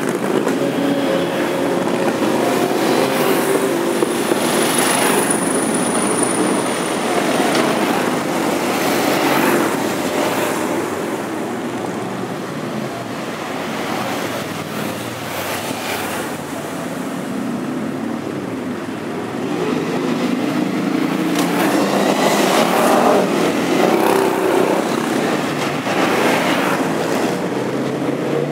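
Motorcycles riding past one after another, the engine noise swelling as each bike goes by, with a quieter stretch in the middle before more arrive. The bikes are touring machines and cruisers.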